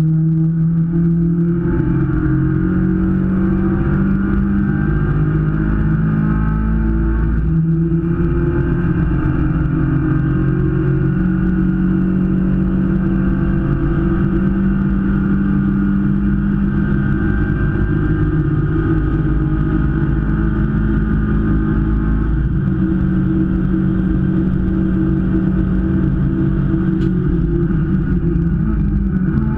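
Race car engine running at racing revs, heard from inside the cockpit, with a constant drone of engine and road noise. Its pitch shifts about 8 seconds in and again about 22 seconds in.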